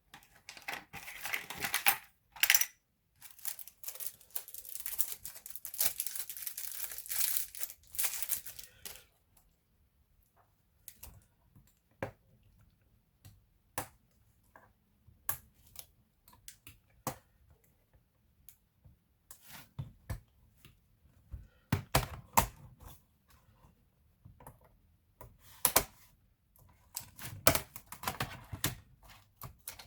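Laptop parts being handled during disassembly: plastic and metal scraping and rustling for the first several seconds, then scattered sharp clicks and taps.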